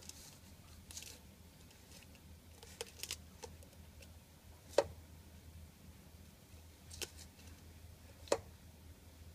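Hollow plastic treat ball clicking and knocking on gravel as a tenrec noses it along, with scattered sharp clicks, the two loudest about five and eight seconds in. A low steady hum runs underneath.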